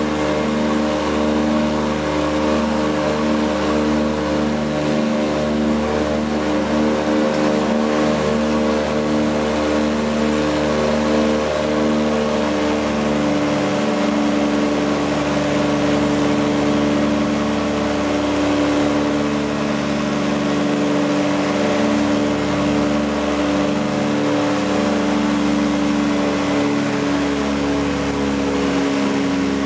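The Douglas DC-3 Dakota's two radial piston engines droning steadily under power, heard from inside the flight deck. The sound is a loud, even drone made of several steady tones.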